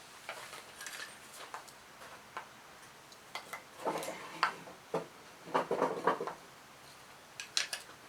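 Light clicks and knocks of small pieces of scrap wood being handled and set into a small metal box-type wood stove, with two louder clattering bursts around the middle.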